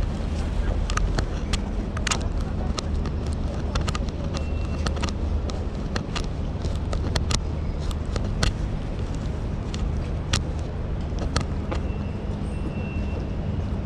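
Busy urban outdoor ambience: a steady low rumble of traffic with irregular sharp clicks and taps close to the microphone, and a faint high beep twice.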